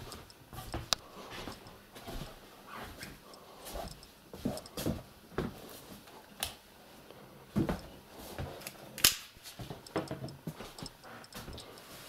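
Footsteps and small knocks of a handheld camera being carried through a corridor: scattered, uneven clicks and thumps, a few louder ones about a second in and again between six and nine seconds in.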